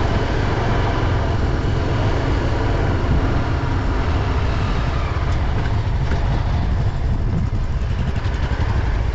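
Vehicle travelling over a rough, unpaved mountain track: a steady, dense rumble of engine and road noise.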